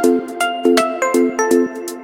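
Background music: a bright plucked or chime-like melody of quick notes, about four a second, over a repeating low accompaniment.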